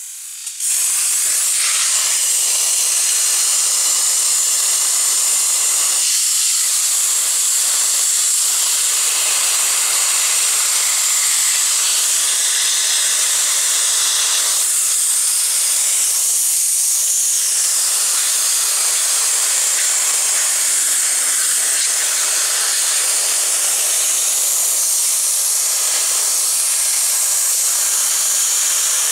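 High-pressure washer jet spraying with a loud, steady hiss as it cuts into a plastic bottle, starting abruptly about half a second in.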